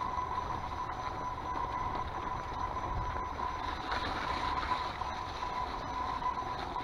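Kona mountain bike rolling along a wet grassy trail with patches of snow: steady tyre noise with light rattling from the bike, over a steady high whine.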